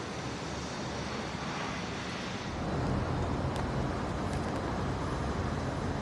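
Outdoor street ambience: a steady rumble of distant traffic, growing louder about two and a half seconds in.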